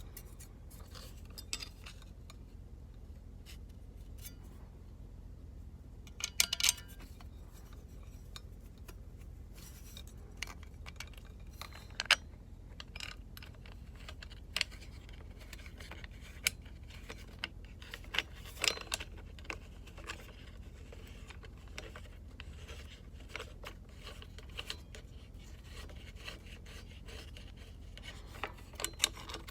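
Scattered metallic clicks, clinks and small scrapes of hand work on a motorcycle's rear fender eliminator bracket, as bolts and nuts are started by hand and left loose. A steady low hum runs underneath, and the sharpest clicks come about a quarter and about two fifths of the way in.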